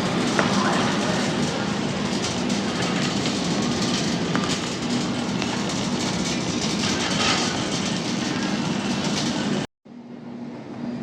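Shopping cart rattling steadily as it is pushed across a store floor, over a steady low hum. It cuts off abruptly near the end, and quieter store ambience follows.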